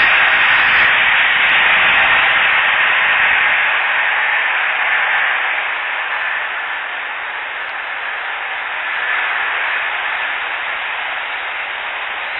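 A low-flying airplane passing overhead, heard as a steady noise that slowly fades as it moves off.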